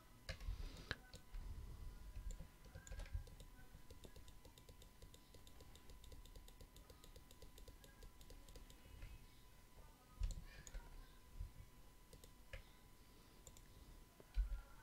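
Faint, scattered clicks of a computer mouse and keyboard, with a few soft low thumps.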